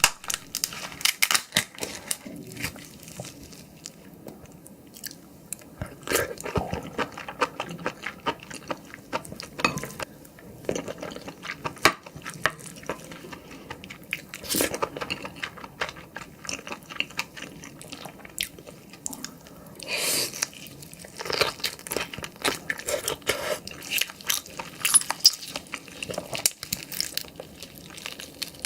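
Close-miked eating of soy-sauce-marinated raw shrimp: bites and chewing, with many irregular sharp clicks and wet smacks.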